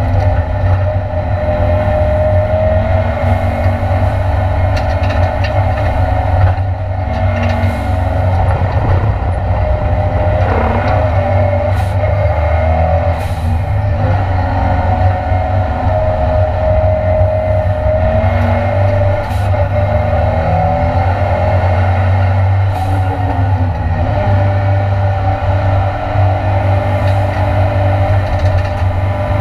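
Ford Escort Mk2 Cosworth race car's engine running hard at racing speed, heard from inside the cabin, its pitch rising and falling as the revs climb and drop.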